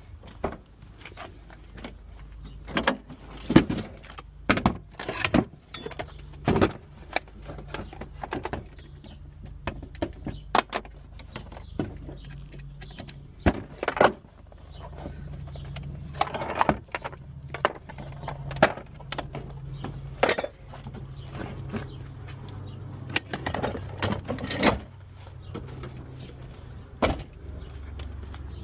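Hand tools and parts being handled while the car's interior is taken apart: a string of irregular clicks, knocks and small metallic rattles, over a low steady hum.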